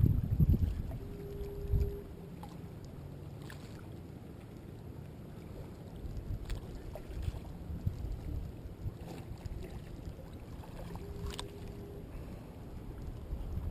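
Low, steady rumble of wind on the microphone and ocean surf, with a few faint clicks scattered through it.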